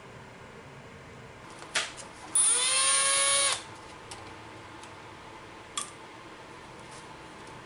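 A small electric motor whines at high pitch for just over a second, spinning up quickly and then holding speed, after a sharp click.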